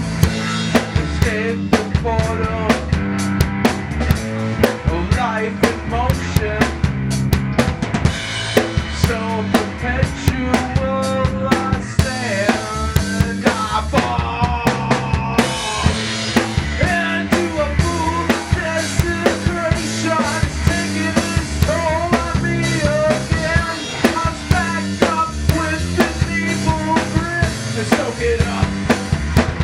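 Rock band playing loud and steady: a drum kit keeps a driving beat of kick and snare hits under guitar and bass, with a pitched melody line bending up and down over the top.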